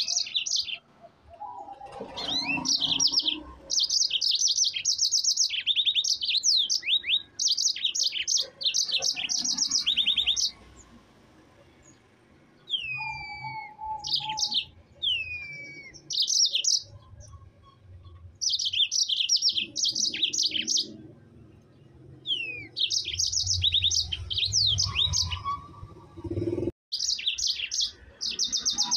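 Yellow-fronted canary singing in fast, high trilled phrases of one to two seconds each, run one after another, with a few downward-sliding whistles and a short lull near the middle. The sound cuts out for an instant near the end.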